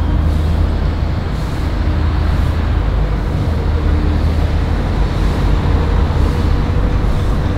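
Steady low rumble of road traffic, with a faint, even engine hum.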